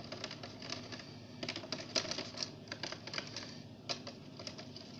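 Light plastic clicking and tapping, an irregular run of small knocks that is thickest in the middle, from a plastic colouring tube and stirrer working against a clear plastic tub of slime glue.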